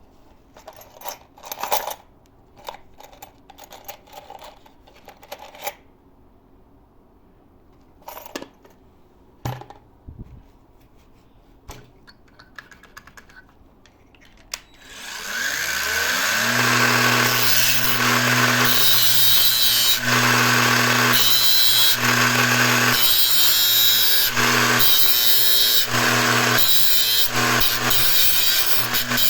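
Scattered clicks and knocks of tools being handled. About halfway through, a power grinder's motor spins up, rising in pitch, and settles into a steady hum with harsh grinding that swells and eases every second or two, as a drill bit is pressed to the abrasive disc to sharpen it.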